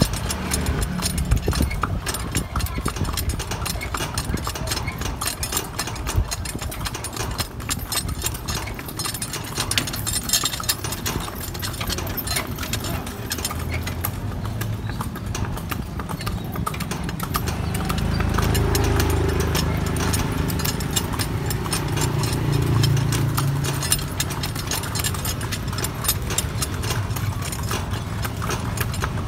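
A horse pulling a cart at a steady clip-clop, its hooves striking the paved road. A low engine hum comes in about two-thirds of the way in and grows louder.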